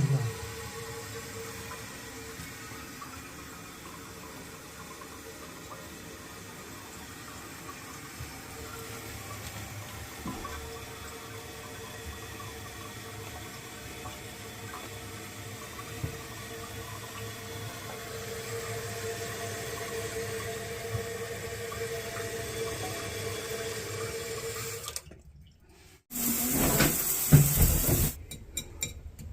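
Toilet tank refilling through the fill valve after a flush: a steady rush of water with a faint steady whine, which stops about 25 seconds in. A brief louder burst of noise follows, then a string of sharp ticks near the end. The owner takes the ticks to mean the water is not shutting off completely.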